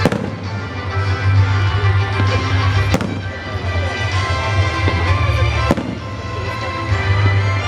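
Fireworks exploding: three sharp bangs roughly three seconds apart, over loud music playing throughout.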